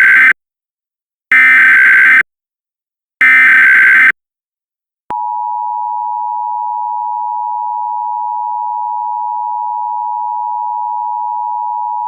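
Emergency Alert System header: the end of one burst of digital data tones, then two more bursts about a second long and about two seconds apart. About five seconds in, the steady two-tone EAS attention signal begins and holds.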